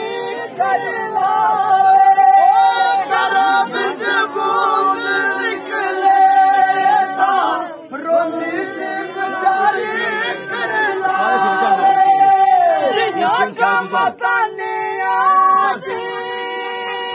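Men singing a Dogri folk song unaccompanied, in long, drawn-out high notes.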